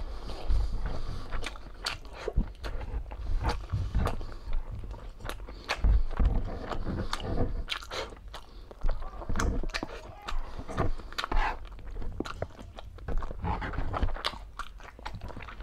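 A person eating close to the microphone, chewing and biting through mouthfuls of braised pork belly (humba) and rice, with irregular mouth clicks and smacks.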